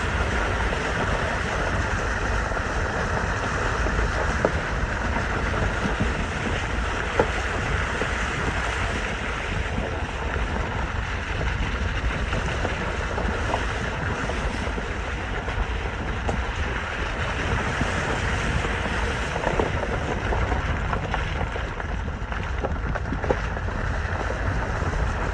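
Steady road and wind noise from a vehicle driving a back road, with low rumble buffeting the microphone and a few faint knocks.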